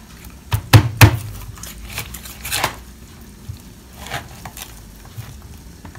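Kitchen utensils knocking and clinking: three sharp knocks close together about half a second to a second in, then softer, scattered taps and clinks.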